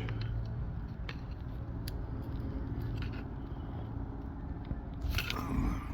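A few faint metallic clicks and scrapes as a hand tool works at a stuck crankshaft position sensor, over a steady low hum.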